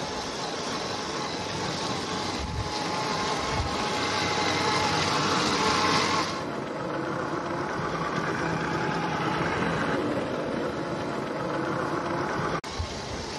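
A vehicle's engine running steadily. The sound changes abruptly about six seconds in and drops out for an instant near the end.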